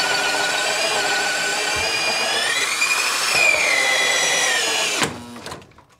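Power drill boring a hole through the wooden box sill for the AC line set. The motor's whine is steady, its pitch rises and falls once near the middle as the load changes, and it stops about five seconds in, spinning down.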